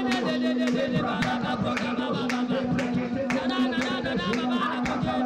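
A man praying aloud rapidly into a microphone in words that are not clear, over a steady held musical note.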